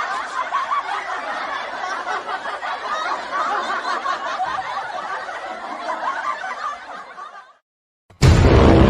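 A crowd of people laughing together, like a laugh track, cutting off abruptly about seven and a half seconds in. Loud music starts near the end.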